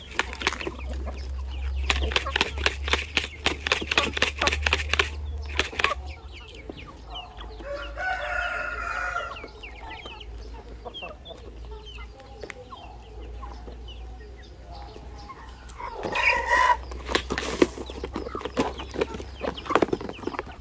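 A flock of fighting chickens clucking as they come to feed, with a rooster crowing twice: a long call about eight seconds in and a louder one about sixteen seconds in. A fast patter of clicks over a low rumble fills the first six seconds, and scattered pecking clicks follow near the end.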